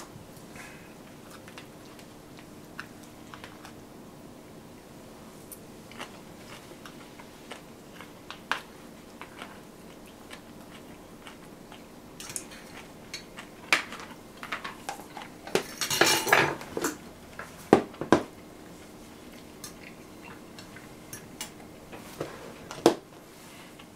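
Cutlery and tableware clinking against stainless steel bowls while a meal is served and eaten: scattered light clicks, a denser clatter lasting about a second past the middle, and a few sharper knocks near the end.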